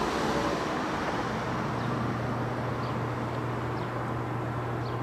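Steady outdoor background noise with a low, even hum starting about a second in and a few faint short chirps.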